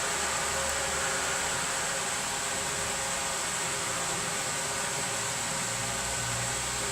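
Steady, even hiss with a faint high whine, unbroken and without clicks or knocks.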